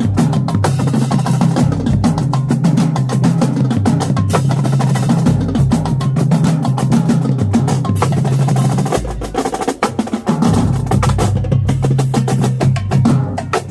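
Marching drumline playing a fast cadence: rapid snare strokes and rolls over pitched tenor and bass drums. About nine seconds in the playing drops back briefly around a low bass-drum hit, then comes back in full.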